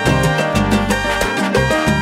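Instrumental salsa background music with a steady beat and a moving bass line.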